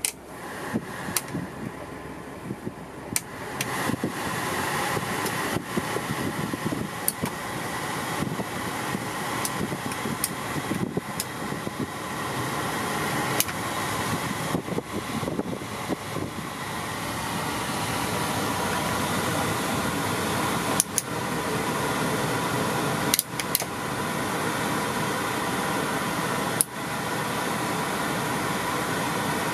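Heater/A-C blower fan in a 1989 Toyota Hiace cab running and growing louder in steps over the first twenty seconds as the fan-speed slider is moved up, with sharp clicks from the dash control sliders.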